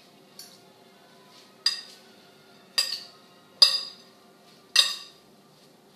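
A spoon clinking against a glass salad bowl as salad is tossed: four sharp, ringing clinks about a second apart, after a fainter tap near the start.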